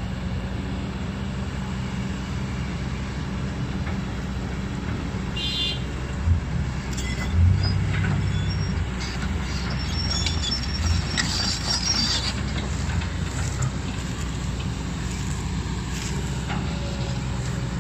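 Kobelco SK200 excavator's diesel engine running steadily, with a couple of knocks about six and seven seconds in and high metallic squeals around the middle.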